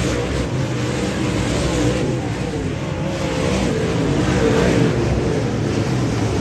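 Dirt-track modified race car's V8 engine running at racing speed, its pitch rising and falling as it revs up and down, over a steady noisy rush.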